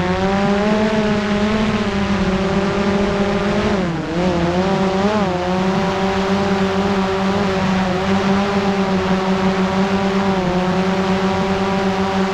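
Quadcopter drone's motors and propellers humming steadily, heard close from the camera slung beneath it, a buzz made of several pitches at once. About four seconds in the pitch dips briefly, then recovers and holds steady.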